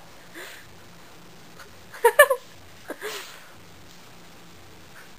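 A woman hiccuping: one sharp, voiced hiccup about two seconds in, followed by a breath.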